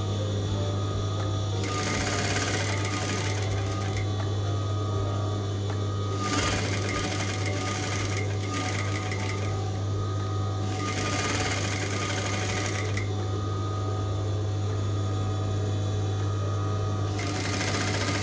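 Singer 3191D200A sewing machine running continuously as it stitches a long straight seam along the fabric edge, with a steady low motor hum under the needle's rapid rattle.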